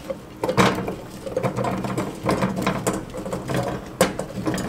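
Diced raw potatoes tumbling from a glass bowl into a dry stainless-steel pot: a rapid run of knocks and clatters, with sharper strikes about half a second in and near the end.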